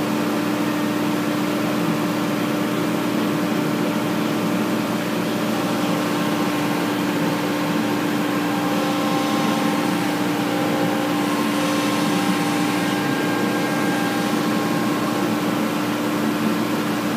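A steady mechanical hum with a constant low tone and no change in level.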